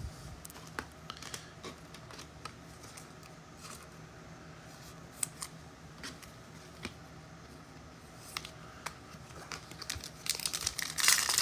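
Trading cards and packaging being handled: scattered soft clicks and rustles. Near the end, a card pack's wrapper crinkles louder as it is opened.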